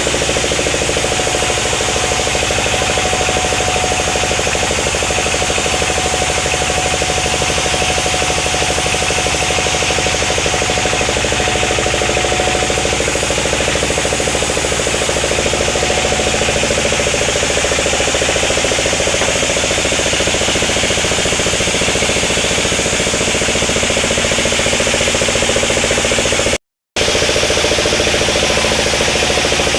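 Sawmill machinery, a saw and its engine, running steadily with a constant tone through the noise; the sound cuts out for a split second near the end.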